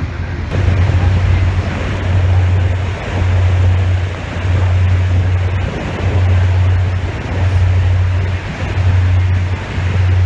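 Wind and water noise on the open deck of a moving tour boat, with a low rumble that swells and fades about once a second.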